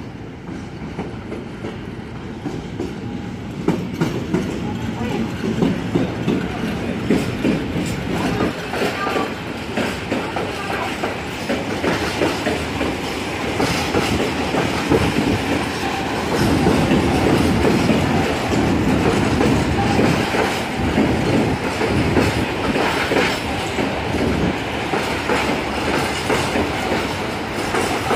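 Freight train hauled by an ET22 electric locomotive running through: a long string of open freight wagons rumbling past with the clickety-clack of wheels over rail joints, getting louder through the first half as the wagons come alongside.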